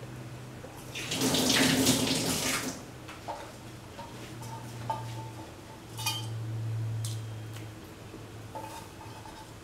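A splashing pour of water into a cooking pot lasts under two seconds, starting about a second in. It is followed by a few light metallic clinks against the pot, over a low steady hum.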